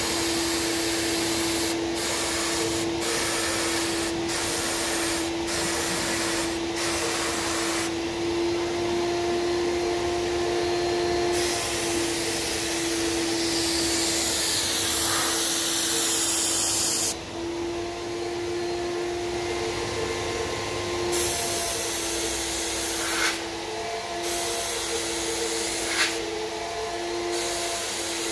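HVLP turbine paint sprayer running with a steady whine, the spray gun hissing as paint is sprayed. The hiss cuts out briefly many times, sometimes for a few seconds, as the trigger is released between passes.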